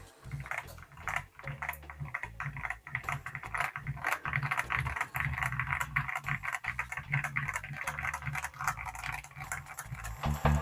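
Fast typing on a mechanical keyboard fitted with Gateron Milky Yellow Pro linear switches in polycarbonate housings: a dense, irregular run of keystroke clacks. A louder low sound comes in near the end.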